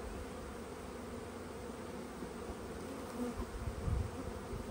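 Steady hum of many honeybees flying around open hives: freshly installed package bees, stirred up after being shaken in. A few low bumps sound about three and a half to four seconds in.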